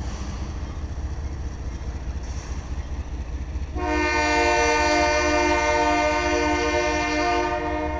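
Diesel freight locomotives rumbling past. About four seconds in, a locomotive air horn sounds one long chord of several notes held for about three and a half seconds, then stops.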